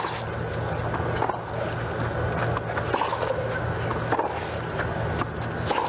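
Tennis ball struck back and forth in a baseline rally: five sharp racquet hits, one about every second and a half, over a steady low hum.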